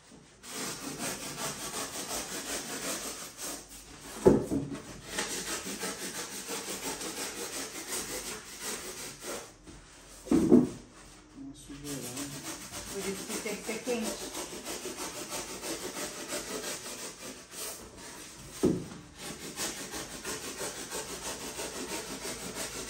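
Serrated kitchen knife sawing through a styrofoam box in quick back-and-forth strokes, a steady scratchy rasp. Three louder knocks come at about 4, 10 and 19 seconds in.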